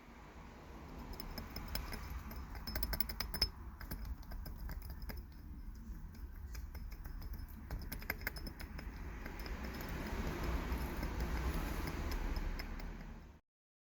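Faint irregular clicking and light rattling over a low, steady rumble, thickest in the first half; the sound cuts off just before the end.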